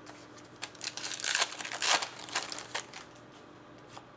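A foil trading-card pack wrapper being torn open and crinkled in the hands, a dense crackling rustle for about two seconds with a few sharp snaps.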